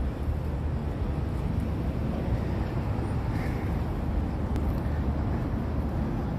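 A tram running along its track, heard through the steady low rumble of wind buffeting the phone's microphone.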